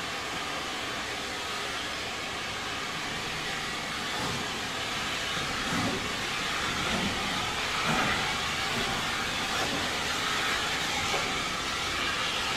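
Steam-hauled heritage train heard from on board a carriage: a steady rushing hiss and rumble of the train on the move, growing somewhat louder about four seconds in.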